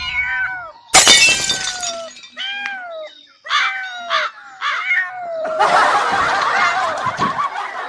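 A cat meowing repeatedly in short calls that fall in pitch. A sudden sharp crash-like noise comes about a second in, and a longer harsh, noisy stretch follows from about six seconds in.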